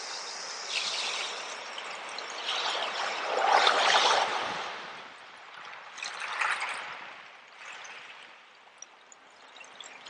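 Small waves washing up over a shell-and-pebble beach and drawing back. The loudest surge comes about three and a half seconds in, a smaller one near six and a half seconds, and the wash then quietens.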